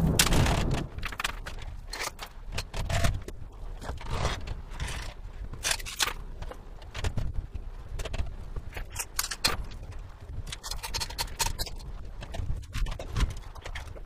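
Irregular metal clanks, rattles and scrapes from a generator being moved along a homemade overhead crane, with a louder knock and rumble right at the start.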